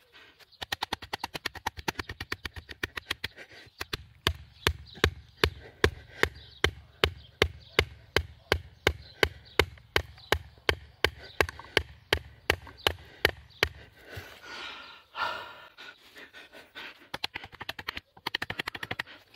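Batoning with an Albainox fixed-blade knife: a wooden baton knocks repeatedly on the blade's spine, driving it down through a log round to split it. The knocks are sharp and evenly spaced, about three a second. They break off briefly near the end, then come faster.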